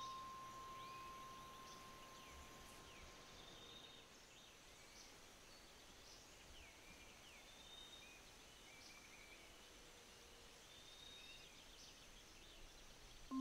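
Near silence in a quiet passage of a vibraphone piece: a single held vibraphone note fades out about four seconds in, with faint, high chirping sounds throughout.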